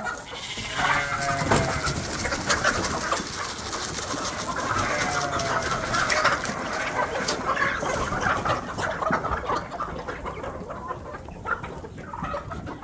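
Chickens clucking as they feed on scattered cracked corn, with many small clicks throughout.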